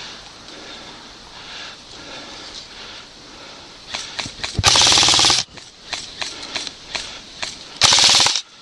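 Airsoft guns firing: scattered single shots, then two short full-auto bursts, the first about halfway through with rapid even clicks and the second near the end, cut off sharply.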